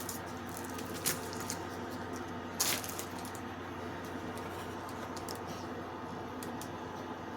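Short crackling handling noises, once about a second in and again near three seconds, over a steady low hum.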